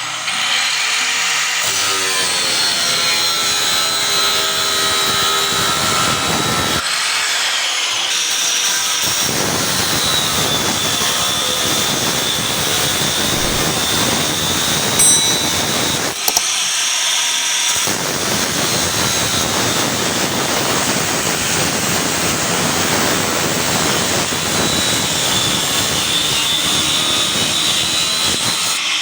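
Angle grinder with an abrasive disc cutting through steel: a steady, loud grinding hiss with a high whine from the spinning disc. The low part of the sound thins out twice for a second or two, and there is a sharp click about halfway through.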